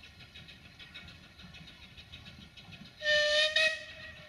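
Narrow-gauge steam locomotive whistle blown once, a short blast of just under a second about three seconds in, with a fainter tone lingering after it.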